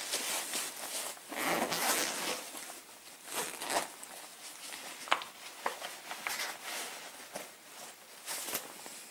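Irregular rustling and scraping as a bag and clothing are handled and a zip is worked, with a few light clicks and knocks, one sharper click about five seconds in.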